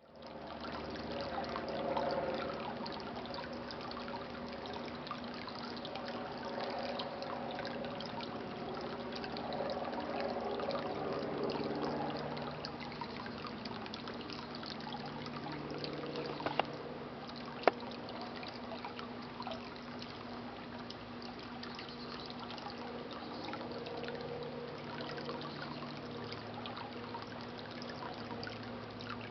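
Water trickling and splashing from a small solar-powered fountain, over a steady low hum. Two sharp clicks come a little past halfway.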